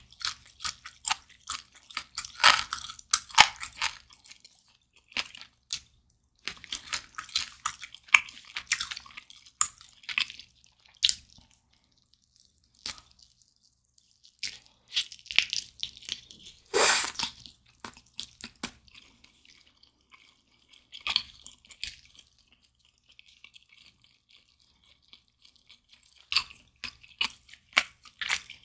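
Close-up eating sounds of glazed roast chicken leg: bites into the skin and meat and chewing, full of sharp crackles, coming in several bursts with short quiet pauses between.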